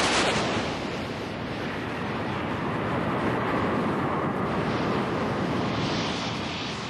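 USS Wisconsin's 16-inch/50-calibre Mark 7 naval guns firing: one sharp blast right at the start, then several seconds of rolling rumble with wind noise on the microphone.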